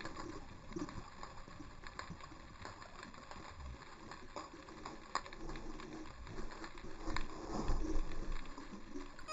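Muffled underwater noise picked up by a GoPro camera submerged in the sea: a fluctuating low rumble of moving water with scattered faint clicks and crackles.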